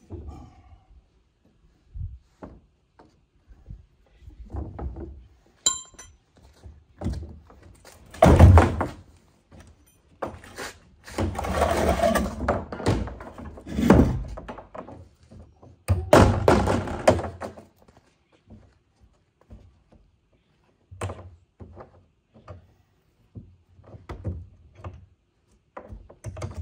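A plastic wheeled trash cart being handled on concrete: hollow plastic thunks and knocks as it is tipped back onto its wheels and shifted, the loudest thunk about eight seconds in, with a few seconds of rattling and scraping twice in the middle.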